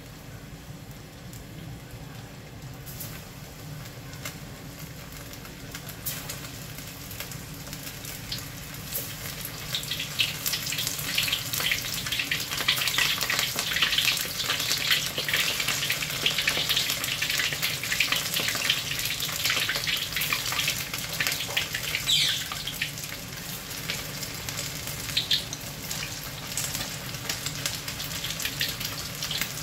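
Flour-coated pork rib pieces deep-frying in hot oil in a wok: a crackling sizzle that grows louder and denser about ten seconds in as more pieces go into the oil.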